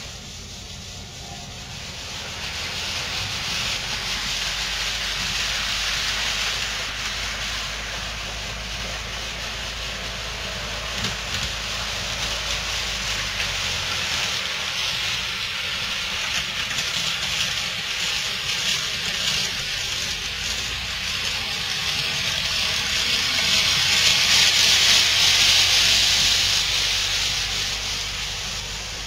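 Model trains running on the layout's track: a steady hiss of small wheels rolling on the rails and their little electric motors running. It swells louder a little past three-quarters of the way through, then eases off near the end.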